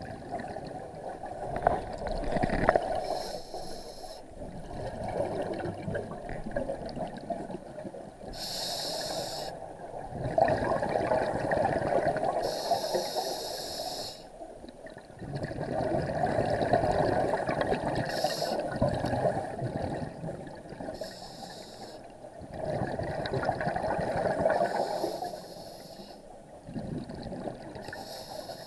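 Scuba diver breathing underwater through an open-circuit regulator: several breath cycles, each a short hissing inhale followed by a longer bubbling exhale.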